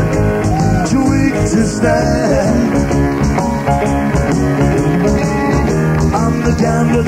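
Live rock band playing loudly, with drums, bass and a melodic line that bends and slides in pitch.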